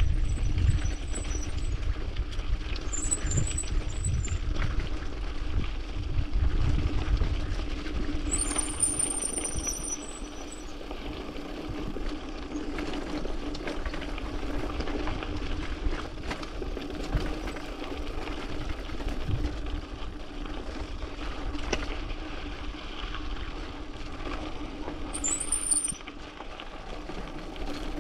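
Mountain bike rolling fast down a rocky dirt trail: tyres crunching over gravel and stones, the bike bumping and rattling, and wind rushing on the body-mounted microphone. Several short high-pitched squeals cut in, the longest lasting about two seconds around nine seconds in.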